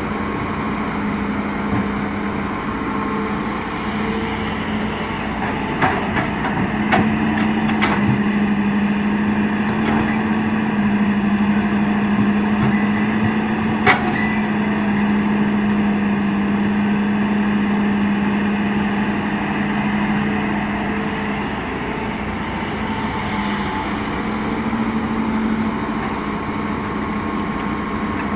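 Hitachi excavator's diesel engine running steadily, working harder through the middle stretch as it digs and loads, with a few sharp knocks, the loudest about halfway through.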